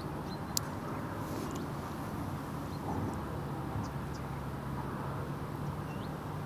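Steady riverside ambience: an even rush of flowing water and outdoor noise, with a low steady hum joining about two seconds in and a few faint high clicks and chirps.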